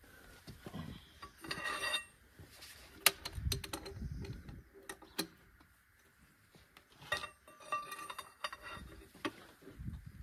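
Scattered metallic clinks, clicks and knocks of a socket and breaker bar with a pipe extension being worked on the clamp bolts of a Farmall Super M-TA's cast rear wheel hub. The sharpest click comes about three seconds in, and a cluster of clinks comes near the end.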